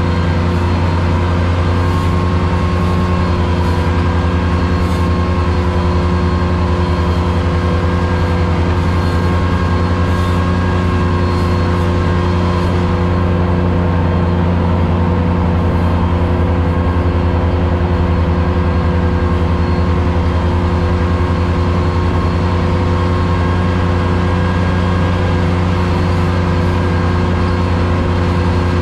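Ventrac 4500Z compact tractor's engine running steadily under load, driving its 72-inch finish mower deck through tall grass, heard from inside the cab.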